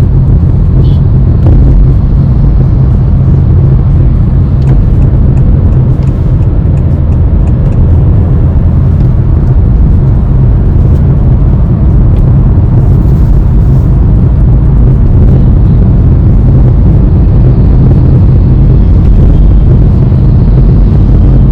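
Cabin noise inside a moving Honda Elevate: a steady low rumble of road, tyres and engine at an even cruising pace, with a few faint ticks.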